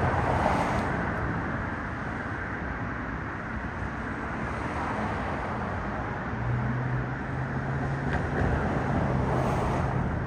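Steady road-traffic noise, with a low engine hum joining in about six and a half seconds in.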